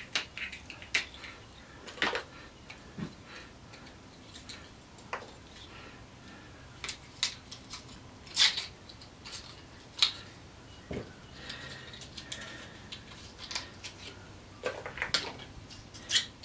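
Thin metal pick scraping and prying copper winding wire out of a small electric motor's stator, giving irregular metallic clicks and scrapes, a few louder ones about halfway through.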